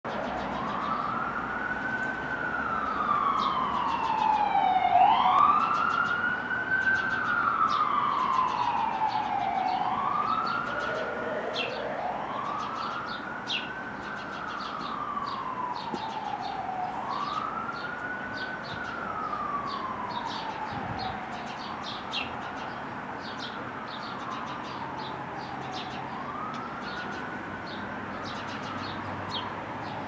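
An emergency-vehicle siren wailing in a slow rise and fall every four or five seconds, loudest about five seconds in and then fading, with a second, higher siren sliding in briefly early on. House sparrows chirp throughout.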